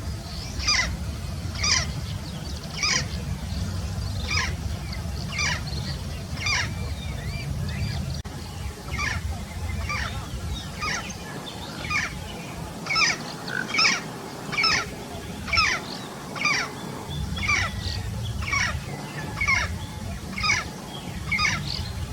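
Yellow-faced parrot (papagaio-galego) giving a long series of short, harsh calls, about one a second, with a brief pause a third of the way through.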